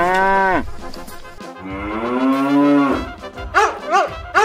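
A cow mooing in two long, drawn-out calls, each sliding up and then down in pitch, followed near the end by three short, quick barks from a small dog.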